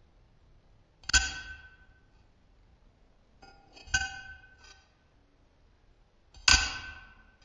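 A chisel struck slowly: three ringing metallic strikes about two and a half seconds apart, the middle one with lighter taps just before and after it.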